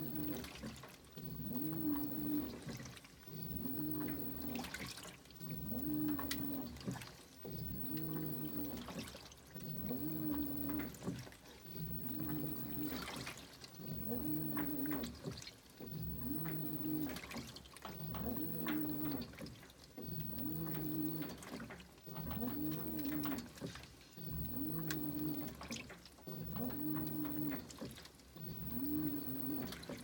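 2012 LG top-load washer's motor agitating an overloaded wash load: the wash plate drives one way, then the other, about every two seconds. Each stroke carries a motor whine that rises and falls, over water and clothes sloshing in the tub.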